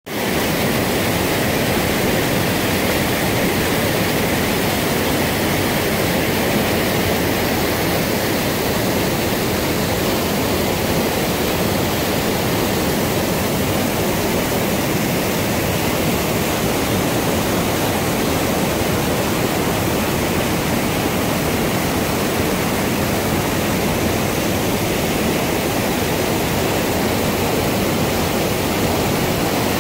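Waterfall pouring over rock ledges: a loud, steady rush of water.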